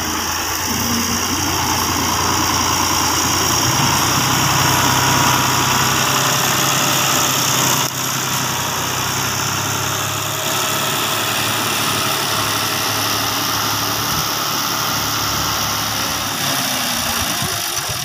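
Fiat 480 tractor's diesel engine running under way, its speed rising about four seconds in and easing off shortly before the end.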